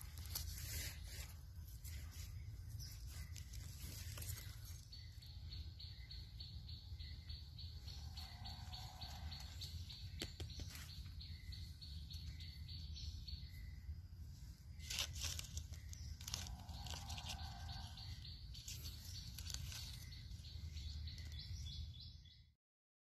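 Forest ambience: birds calling now and then over a steady high insect buzz that stops and starts, with a few sharp rustles and clicks of dry leaves being handled. A low rumble runs underneath, and the sound cuts off suddenly near the end.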